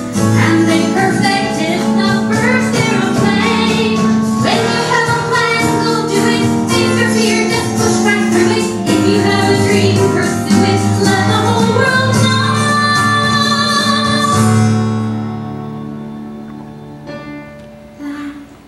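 A song with a singing voice and instrumental backing, fading out over the last few seconds.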